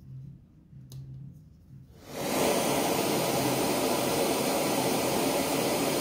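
LectroFan Micro 2 white noise machine switched on: a click about a second in, then from about two seconds in a loud, steady, even hiss of noise from its small speaker.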